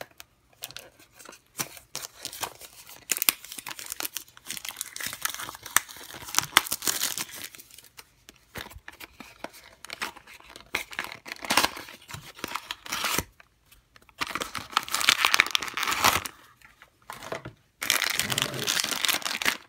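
Cardboard blind box being torn open by hand, then the crinkly blue foil bag inside rustling and crinkling as it is handled, in spells with short pauses.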